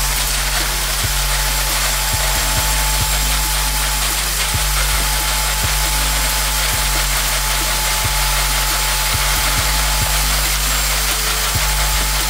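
Handheld electric drain cleaner running steadily, its coiled steel cable spinning and rubbing through the clear plastic pipe, over background music with low sustained notes.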